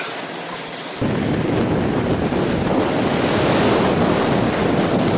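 Wind buffeting the microphone over the rush of a rough sea aboard a sailing yacht; the heavy wind noise comes in suddenly about a second in and stays steady.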